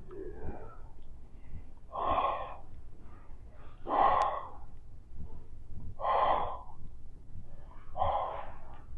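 A woman breathing heavily while she exercises and blows a bubble-gum bubble, about one strong breath every two seconds. There is a single sharp click just after the second breath.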